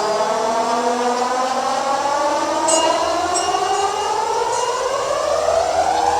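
A whining tone with many harmonics, rising slowly in pitch and climbing faster near the end, like a siren winding up.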